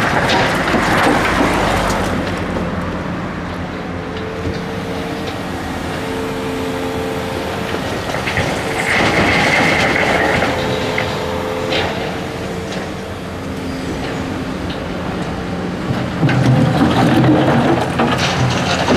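Volvo EC480D excavator's six-cylinder diesel engine and hydraulics working under load, running continuously with a steady hum through the middle stretch. It turns harsher and noisier about nine seconds in and again near the end.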